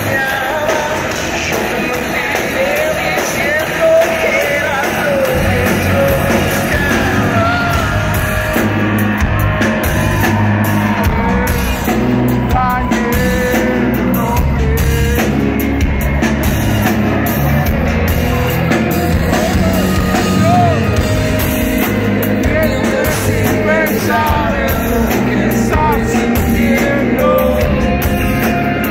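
Live rock band playing with electric guitars, drums and bass, with singing over it. The low end of drums and bass gets fuller about five or six seconds in.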